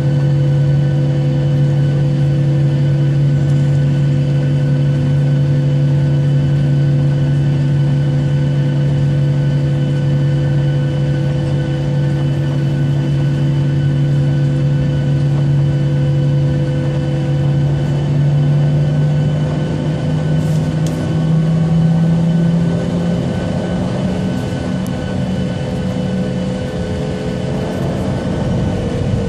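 Jet airliner engines heard from inside the cabin while taxiing: a steady whine made of several held tones. The pitch edges up about two-thirds of the way through, and a rushing noise builds near the end.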